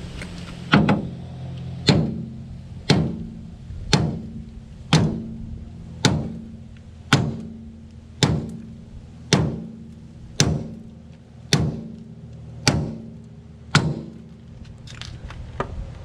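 Hammer blows on a rusted-in steel shock-absorber bolt, about thirteen strikes at a steady pace of roughly one a second, each with a short metallic ring, trying to drive out the seized bolt. A steady low hum runs underneath.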